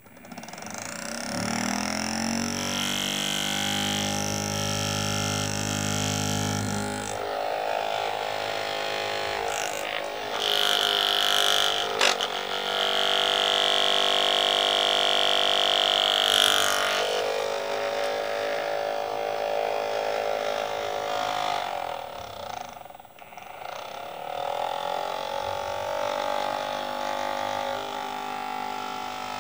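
Small electric motor in a cardboard engine model whirring after being switched on. It spins up at the start, and its whine shifts in pitch several times as the model is handled. About three quarters of the way through it briefly dips, then picks up again.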